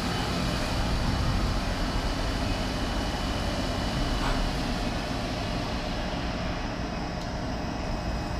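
Mori Seiki DuraVertical 5100 vertical machining center running with a steady low hum and hiss while the spindle feeds a small tool slowly down onto the tool setter in a tool-length measuring cycle.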